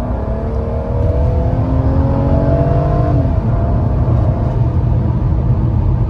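Mercedes-Benz W124's hand-built M104 straight-six engine revving up under acceleration, its note rising for about three seconds. The note then drops away, leaving a low road and wind rumble.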